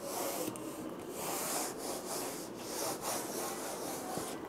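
Whiteboard eraser wiping marker writing off a whiteboard: a dry rubbing swish in repeated back-and-forth strokes, about two a second.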